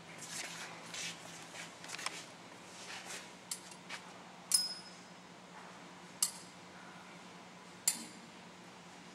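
Metal thurible swung on its chains during an incensing, the chains and lid clinking against the censer bowl: soft rustling at first, then four sharp metallic clinks, the loudest about four and a half seconds in with a brief ring.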